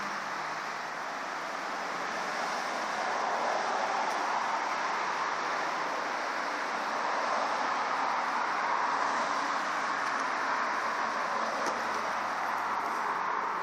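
Steady rushing background noise that slowly swells and eases, with no distinct events.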